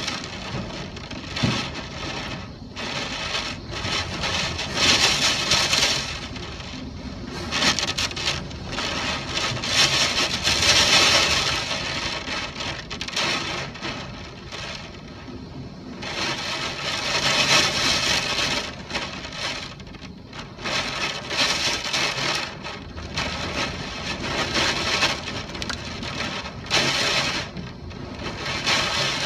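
Typhoon wind gusting, a rushing noise that swells and fades in surges every few seconds, loudest about a third of the way in.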